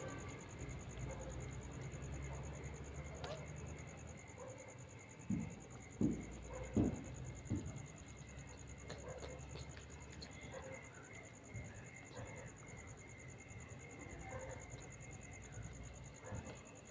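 Night insects trilling steadily over a low background rumble. Four short, louder low sounds come close together near the middle.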